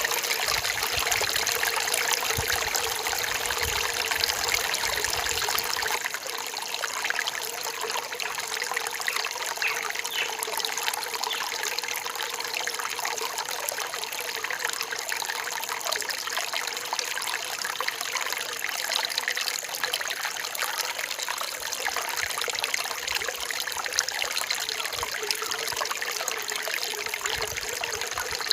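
Forest stream trickling and splashing steadily over rocks.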